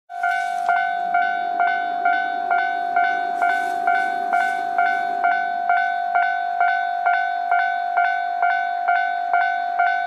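Japanese railway level-crossing alarm ringing: an electronic two-tone 'kan-kan' bell striking about twice a second at a steady pace, meaning a train is approaching. A low rumble sits under it for the first five seconds or so, as the barrier arm comes down.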